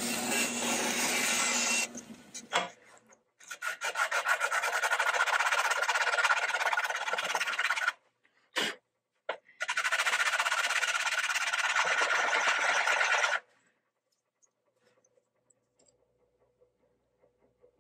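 Bone nut blank being shaped by hand, rasped or sanded back and forth in long runs of rapid scratchy strokes that start and stop abruptly, three times. It falls silent about 13 seconds in.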